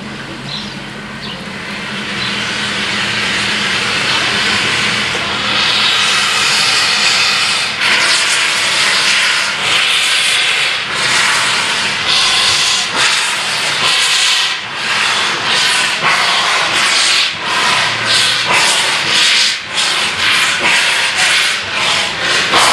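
BR 9F 2-10-0 steam locomotive getting under way with its cylinder drain cocks open: a loud, steady hiss of steam that builds over the first few seconds. From about a third of the way in it pulses with beats that gradually quicken.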